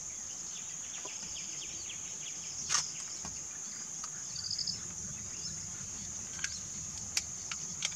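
Steady, high-pitched drone of insects, with a few sharp clicks, the loudest about three seconds in, and a brief bird chirp partway through.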